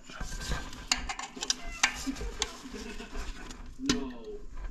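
Irregular sharp metal clinks and light scraping of hand tools against parts inside a 4L60 automatic transmission case.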